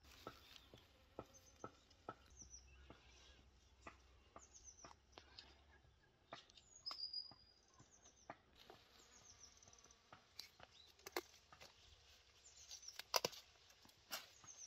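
Faint garden ambience with small birds giving short chirps now and then, over scattered soft clicks and rustles of leaves and stems as someone moves through pepper plants. Near the end a few sharper snaps come as peppers are picked off the plants.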